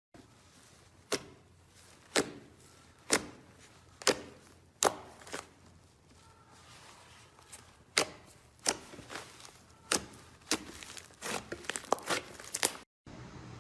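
Slime being pressed and worked by hand, giving sharp crackling pops about once a second, which come faster and closer together near the end.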